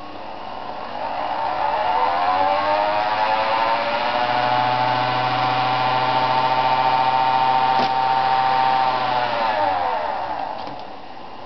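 Anker RZ sewing machine run up to speed by its electric motor: a whine rises in pitch over the first couple of seconds, holds steady, then falls away as the machine slows near the end. A single click comes about eight seconds in.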